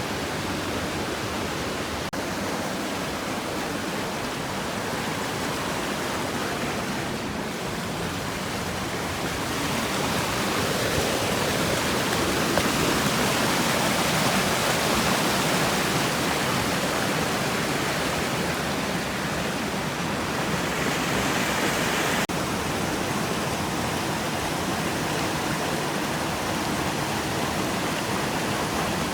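Rushing water of a mountain stream or waterfall, a steady roar. It grows louder for a stretch in the middle, then drops suddenly.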